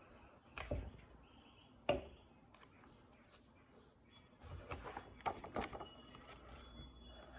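Faint handling sounds of a paper letter cut-out being glued onto a worksheet: a few light taps, then soft paper rustling with small ticks.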